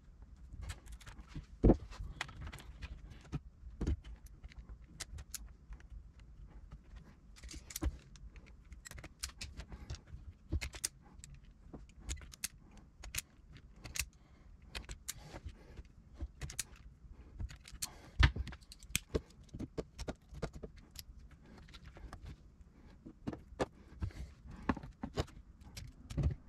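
Small metal hand tools working on wire: wire cutters and a crimping tool clicking and snapping irregularly while stripping wire and crimping terminal connectors, with a few sharper snaps standing out.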